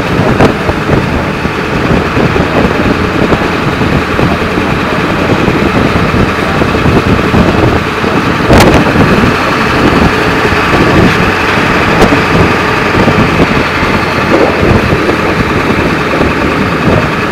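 Ford F-350's 7.3-litre Power Stroke turbo-diesel V8 running steadily under load while plowing snow, with a dense roar of engine and road noise. A sharp click comes about eight and a half seconds in and another about twelve seconds in.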